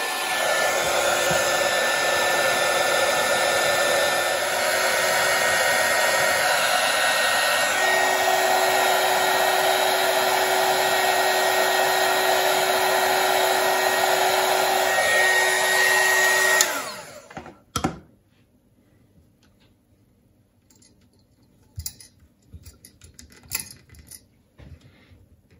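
Hand-held electric heat gun blowing steadily with a whine from its motor, then switched off and stopping sharply about 17 seconds in. A single knock follows, then a few faint clicks of handling.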